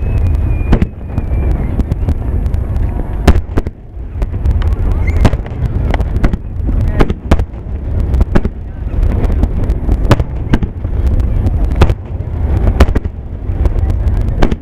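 A dense finale barrage of aerial firework shells bursting in rapid succession. Sharp bangs come every second or so over a continuous low rumble of overlapping booms.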